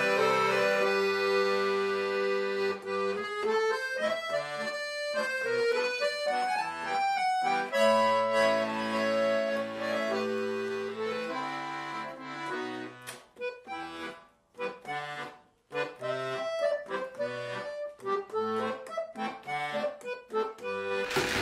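Background music of a solo accordion playing a melody over held bass notes. It thins out with brief pauses a little past halfway through, then resumes.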